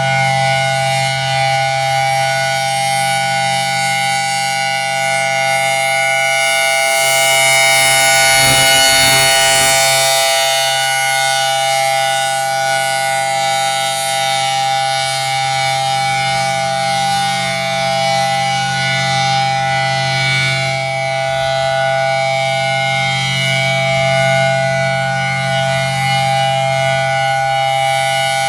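Federal Signal Thunderbolt 1000T outdoor warning siren sounding a steady chord of tones for a scheduled test, not an alert. It swells louder about eight seconds in and eases back, and the siren sounds healthy.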